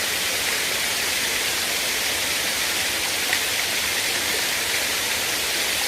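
Karekare Falls pouring into its pool: a steady, unbroken rush of falling water, mostly a high hiss.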